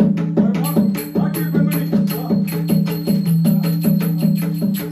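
Mridangam-style double-headed barrel drum played by hand in a fast, even rhythm of about five strokes a second, over a steady low drone, with a bright metallic jingle on the beats.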